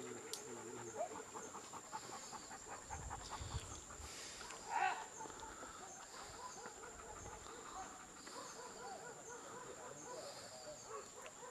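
Leashed hunting dogs panting fast and steadily, with one short louder cry about five seconds in.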